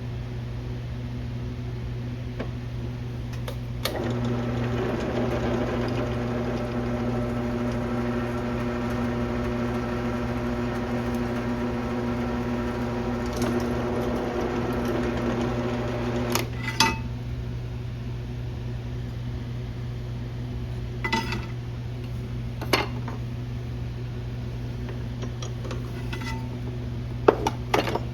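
An electric drill motor runs at a steady speed for about twelve seconds, then stops. After it, metal parts and tools clink sharply against each other a few times, over a steady low shop hum.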